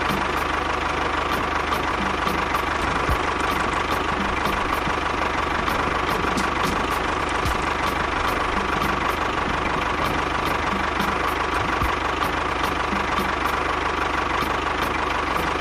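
Tractor engine running steadily at an even speed, with a light, regular ticking.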